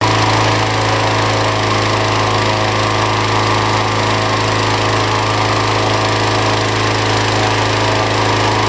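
Petrol-engined inflator fan running steadily at high speed, blowing cold air into a hot-air balloon envelope during cold inflation: a constant engine hum under a loud rush of air.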